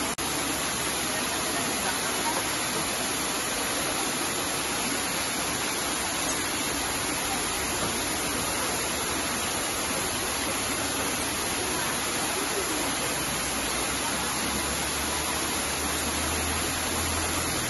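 Small waterfall running down a rock face, a steady, even rush of falling and splashing water.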